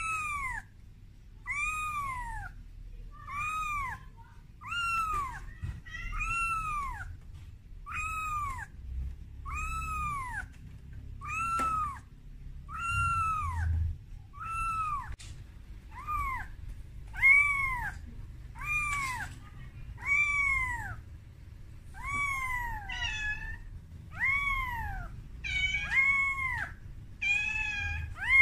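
A very young calico kitten meowing over and over, about one cry a second, each cry rising then falling in pitch: the distress call of a kitten calling for its mother. Near the end the cries turn higher and more broken.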